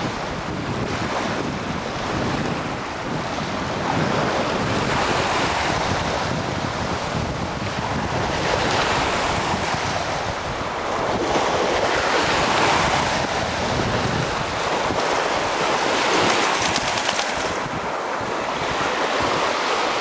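Lake Michigan waves washing onto the shore, a continuous rush that swells and ebbs every few seconds, with some wind buffeting the microphone.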